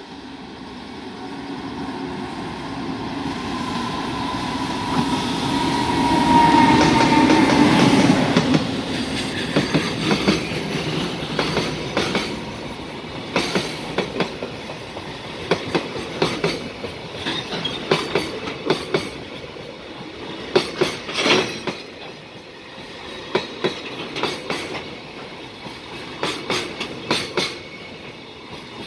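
JR Freight EF510 'Red Thunder' electric locomotive approaching and passing at speed, its whine sliding down in pitch as it goes by about seven seconds in. A long train of container flatcars follows, rolling past with repeated clusters of clickety-clack as the wheels cross rail joints.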